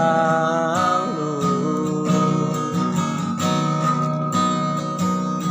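Song with acoustic guitar strumming. A singer holds one long note from about a second in.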